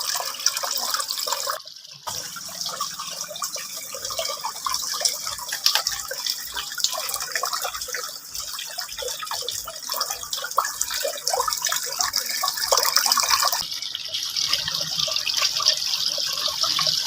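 Water from a small homemade fountain splashing and trickling steadily, cutting out briefly about two seconds in.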